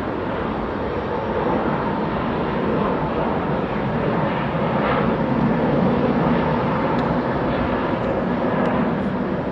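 Boeing 737-800's CFM56-7B turbofan engines at takeoff thrust, a steady rushing noise as the jet accelerates down the runway, swelling slightly about halfway through.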